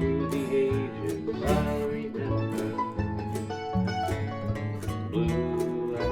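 Slow country instrumental with no singing: a guitar and other plucked strings pick a melody over a bass line.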